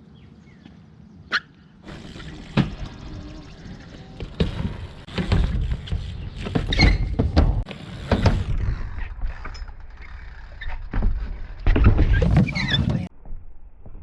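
BMX bike being ridden: tyres rolling on hard ground with knocks and clatter from the bike, and heavy rumbles that peak in the middle and again near the end. The sound cuts off suddenly about a second before the end.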